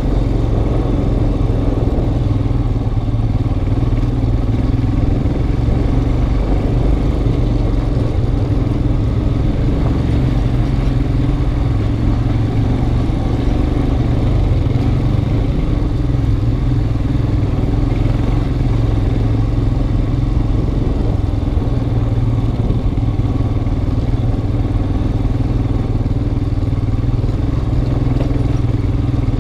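Motorcycle engine running steadily at low speed on a rough gravel track, heard from the rider's helmet.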